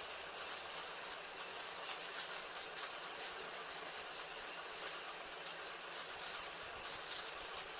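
Thin clear plastic bag crinkling and rustling in the hands as it is handled and opened: many brief, irregular crackles over a steady background hiss.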